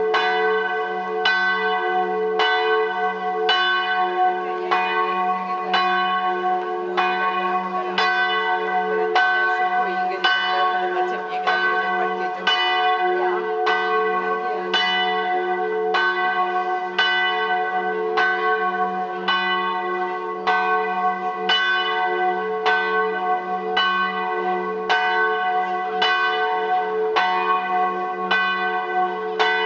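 A church bell rung quickly and steadily, about three strokes every two seconds, each stroke ringing on into the next.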